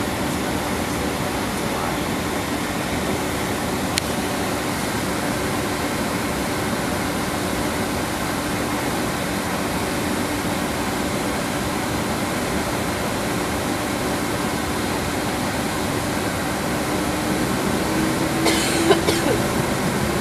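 Steady cabin noise of a Boeing 767-300ER taxiing: jet engines at low power and cabin air, with a faint steady hum. Near the end the hum rises a little in pitch and a brief rattle sounds. A single click about 4 seconds in.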